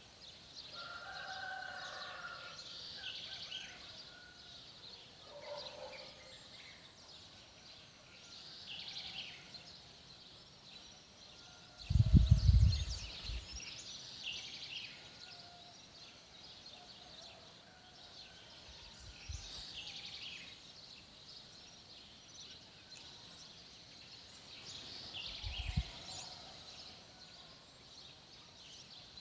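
Birds singing and calling outdoors, with many short high-pitched calls and a few lower calls in the first few seconds. A brief low rumble about twelve seconds in is the loudest sound, and a smaller one comes near the end.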